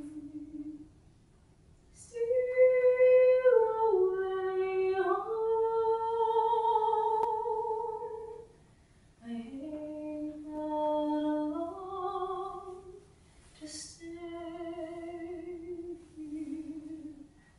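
A woman singing without accompaniment: slow, long-held notes that step up and down, in three phrases with short breaks between them.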